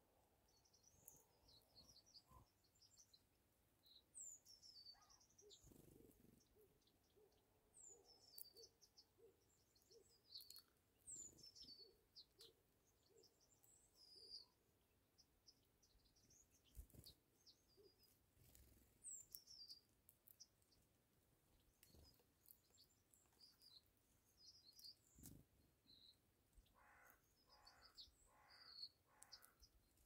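Faint small-bird chirps and short falling whistles, scattered through the clip, with soft clicks and taps in between. Near the end a larger bird gives four evenly spaced harsh calls, about two a second.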